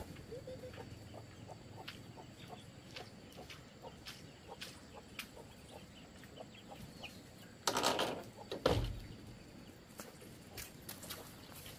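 Chickens clucking and chicks peeping in short scattered calls, with a brief louder rustling noise and a low thump about eight seconds in.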